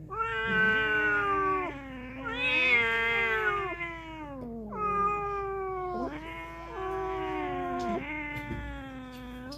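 Domestic cat yowling (caterwauling) in a face-off with another cat, a territorial threat before a fight. There are about four long, wavering calls, each sliding down in pitch at its end.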